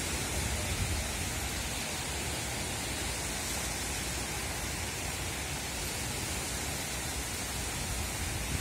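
Steady rushing noise of wind and small waves washing onto a beach, with wind buffeting the microphone in low rumbles about half a second to a second in.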